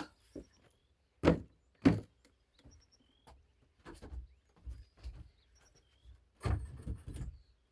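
A ladder being moved and set in place: two loud knocks about a second in, lighter knocks and clatter after, and a longer rattling thump near the end.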